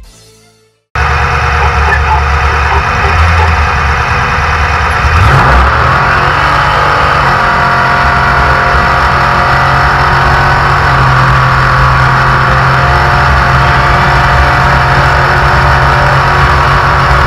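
Off-road race truck's engine running hard, cutting in suddenly about a second in; its pitch climbs a little around five seconds and then holds steady.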